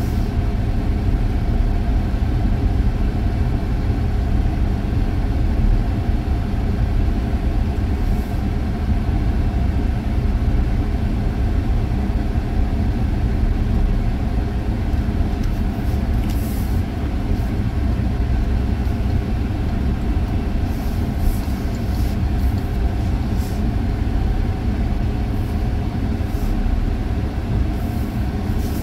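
Steady engine and road noise heard from inside a moving vehicle's cabin, with a few faint high clicks in the second half.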